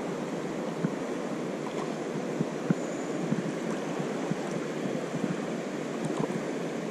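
Shallow river water running steadily over a rocky bed, with a few faint short ticks.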